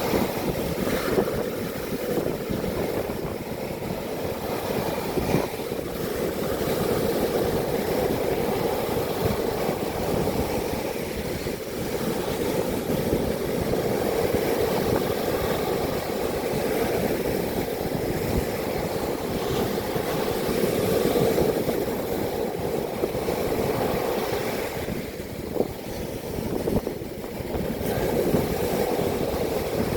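Typhoon-driven surf and strong wind at the shore: a steady rushing noise that swells and eases every few seconds.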